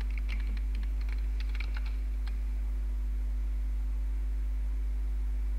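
Computer keyboard typing, a quick run of keystrokes that stops a little over two seconds in, over a steady low electrical hum.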